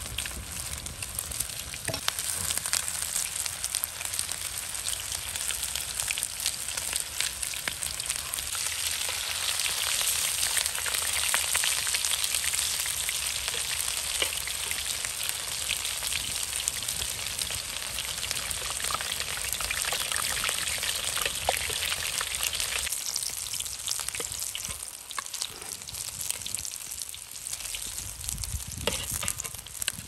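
Minced meat and potato patties shallow-frying in hot oil in a pan, a dense steady sizzle with fine popping. It eases somewhat about three quarters of the way through.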